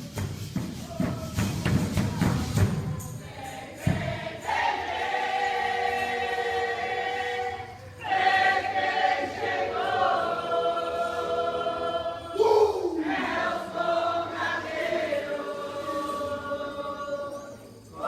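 Music: a group of voices singing long held notes in phrases, with low drumming in the first few seconds.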